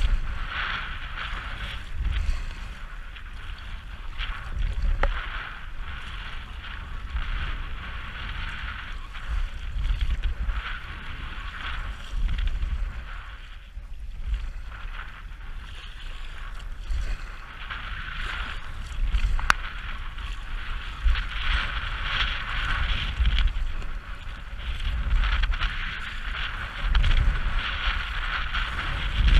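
Gusty wind buffeting the action-camera microphone, over choppy lake water splashing and lapping against an inflatable kayak as it is paddled.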